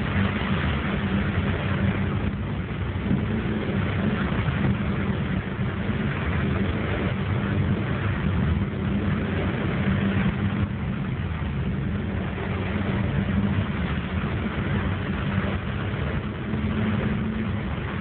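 Heard from inside a car's cabin while driving through heavy rain on a flooded road: a steady hiss of rain and water spray over the car engine's low, even hum.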